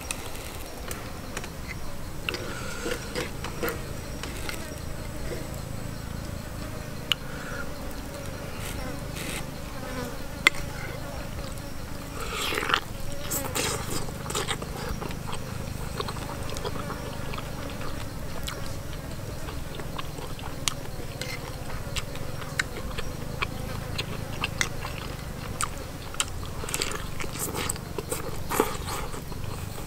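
Close-up eating sounds: biting and chewing grilled chicken drumstick meat, with scattered sharp mouth clicks and a louder spell of tearing and crackling about halfway through, over a steady insect buzz.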